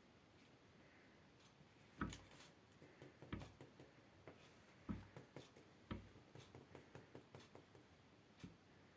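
Cats' paws landing and scrabbling on a sofa as they pounce on and bat at a dried grass spikelet: four or five soft thumps, each followed by light scratching ticks.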